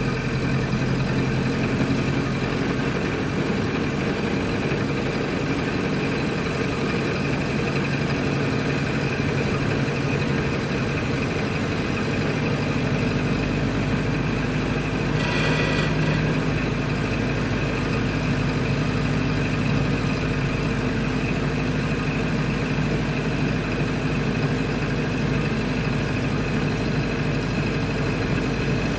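Ford Model A's four-cylinder engine running steadily, with a brief higher-pitched sound about halfway through.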